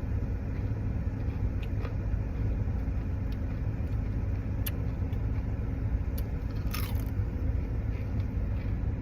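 A steady low rumble, with a few sharp light clicks and a brief crunchy crackle scattered through it, like food and containers being handled.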